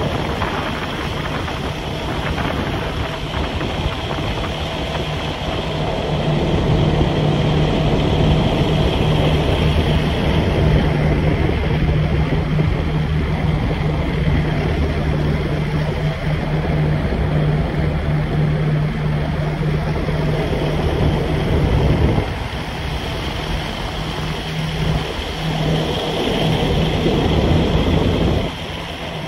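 An engine running steadily with a low, even hum, wind rushing over the microphone, and two brief dips in level near the end.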